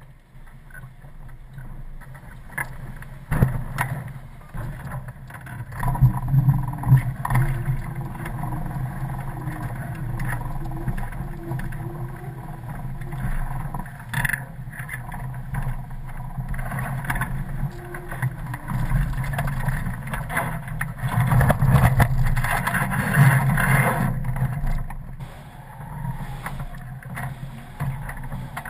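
Sailing catamaran under way, heard from a mast-mounted camera: steady rushing of wind and water, with scattered knocks and rattles from the rig. It swells louder for a few seconds about a quarter of the way in and again about three-quarters of the way in.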